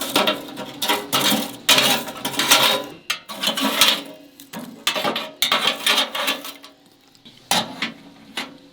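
Camping pots, pans and cutlery clattering and clinking as they are handled for washing up, a quick run of knocks with some metallic ringing that thins out near the end.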